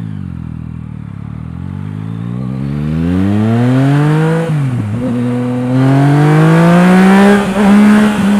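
Yamaha MT-09's inline three-cylinder engine through an Akrapovič exhaust, pulling away under acceleration with its pitch rising steadily. About four and a half seconds in the revs drop sharply at a gear change, then climb again in the next gear.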